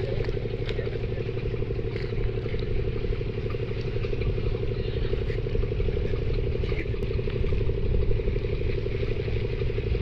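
A steady idling engine drone, with a few faint clicks over it.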